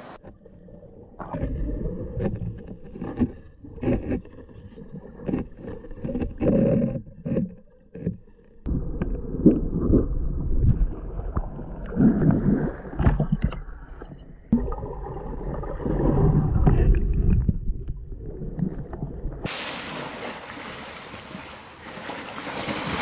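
Water churned by swimming elephants sloshing and splashing around a camera at the surface, heard muffled through its waterproof housing as it dips in and out of the water, in irregular low surges. About twenty seconds in it switches suddenly to a bright, steady hiss of splashing water.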